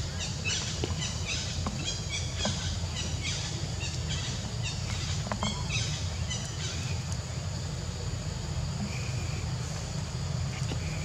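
Outdoor forest ambience: rapid high chirping of birds or insects for the first seven seconds or so, thinning out after that, over a steady low rumble.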